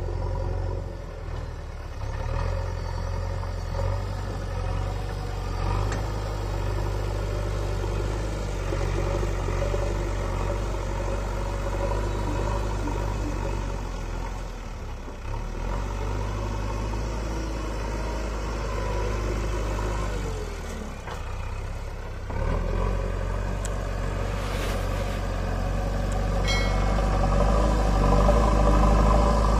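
JCB 3DX backhoe loader's diesel engine running as the machine works the front loader bucket through soil: a steady low drone that dips briefly twice and grows louder near the end.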